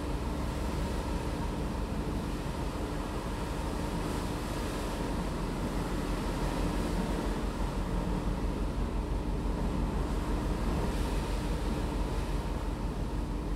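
Passenger ferry under way at sea: a steady engine hum with a constant pitch, under an even rush of wind and water along the hull.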